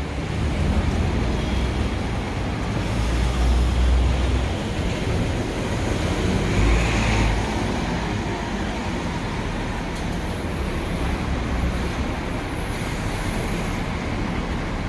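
Steady city street traffic noise, with vehicle engines passing close by, including a double-decker bus. The low engine sound swells twice, in the first half.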